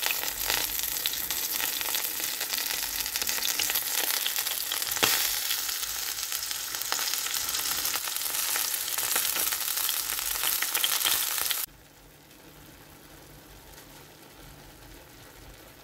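Raw minced beef sizzling in hot oil in a pan: a loud, even frying hiss with a few small clicks. It drops off suddenly near the end, leaving only a faint steady sound.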